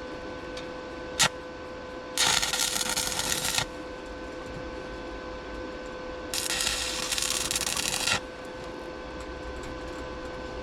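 Electric arc welder tacking steel trailer frame: two short bursts of welding crackle, the first about two seconds in and the second about six seconds in, each under two seconds long. A sharp click comes about a second in, over a steady faint hum.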